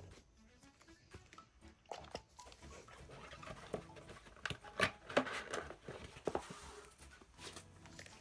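Packaging being handled and opened: rustling with scattered taps and clicks, busiest in the middle.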